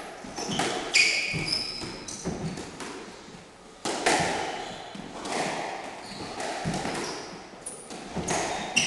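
Squash rally: the ball cracking off rackets and court walls at irregular intervals, each hit ringing in the enclosed court, with court shoes squeaking briefly on the wooden floor between shots.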